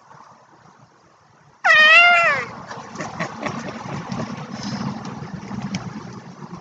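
A domestic cat gives one loud meow about a second and a half in, rising a little then falling away, lasting under a second. Afterwards comes softer rustling with scattered light clicks.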